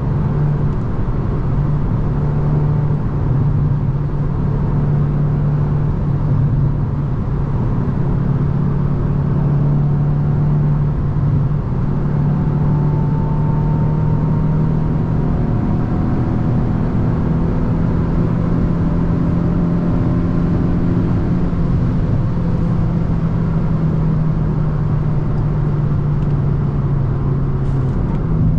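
Hyundai i20 N's turbocharged 1.6-litre four-cylinder engine running at steady motorway speed: a constant engine drone over road noise, its pitch holding nearly level with a few small shifts.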